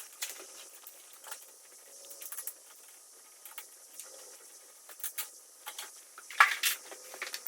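Scattered light metallic clicks and clinks of small motorcycle suspension-linkage parts and tools being handled, with a louder cluster of clinks about six and a half seconds in.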